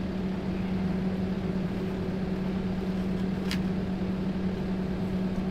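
A motor runs steadily with a constant low hum, unchanged throughout, with a brief sharp click about three and a half seconds in.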